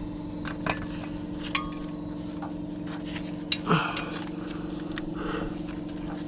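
A steady low hum with scattered light clicks and small knocks of an impact wrench and its socket extension being fitted onto a rusted exhaust manifold bolt, with a slightly louder knock about three and a half seconds in.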